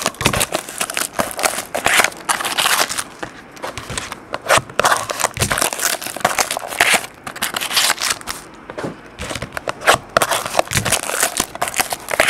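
Clear plastic shrink-wrap crinkling and tearing as it is pulled off a sealed box of baseball cards, in a run of irregular crackles.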